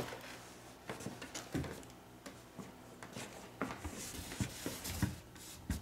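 Faint, irregular knocks, shuffles and rustles of someone moving about on a hardwood floor beside the machine, with no speech.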